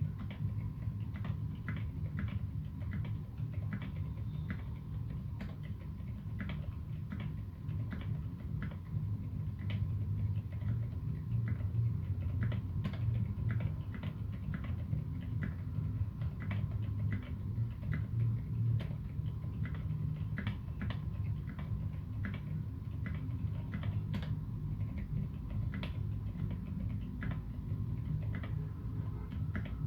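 Typing on a TX1800 mechanical keyboard with modded Cherry MX Silent Black switches and SA keycaps: a continuous stream of soft, damped keystrokes, several a second, over a steady low hum.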